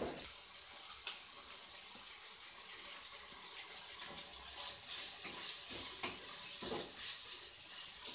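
Chopped onion and spring onions sizzling in hot oil in a non-stick wok on high flame, with a steady hiss and occasional scrapes and taps of a wooden spatula stirring them.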